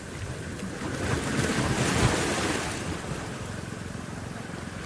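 Wind rumbling on the microphone over the wash of moving water, swelling to its loudest about two seconds in.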